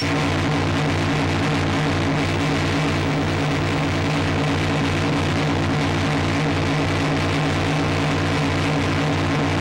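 Maximal Drone synthesizer playing a dense, noisy electronic drone. It cuts in suddenly, with steady low hum tones under a hiss, and a low throb pulses about four times a second.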